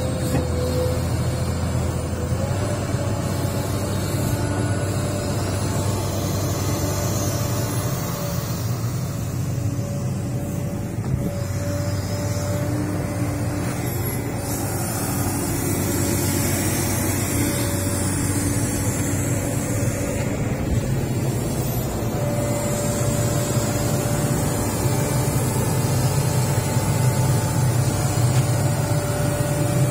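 Large crawler excavator's diesel engine running steadily, with a held, even whine over the engine hum.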